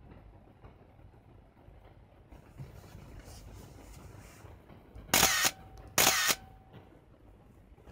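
Canon EOS-1 film SLR firing twice, about a second apart: each shutter and mirror release runs straight into the short whir of its built-in film-advance motor. The function test shows the camera working normally.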